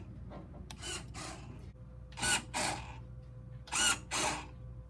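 Remote actuator of a wireless Chicken Switch (CBS ArcSafe RSK-CS01W) running in short mechanical bursts, about three times a second and a half apart, as it rotates a pistol-grip control switch to trip or close. A steady low hum runs beneath.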